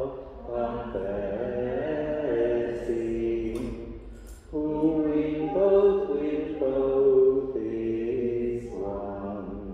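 Voices singing a slow hymn in chant style, holding long notes in phrases with short breaks about half a second and four and a half seconds in.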